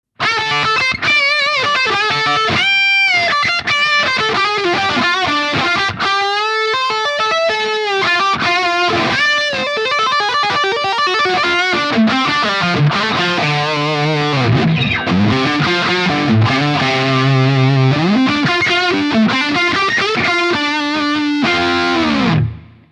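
Electric guitar played through a Peavey 6505 1992 Original 120-watt tube amp, in lead lines with wide vibrato and bends. Near the end the pitch falls sharply, then the sound cuts off.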